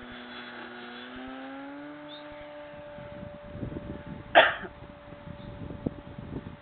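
Radio-control model airplane's motor running overhead with a steady whine, its pitch rising slightly over the first two seconds and then holding. A single short, loud burst about four seconds in is the loudest sound, with low irregular rumbling after about three seconds.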